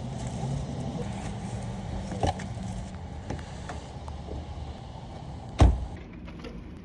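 Car engine running steadily with a low hum, with a few light clicks and one loud thump about five and a half seconds in.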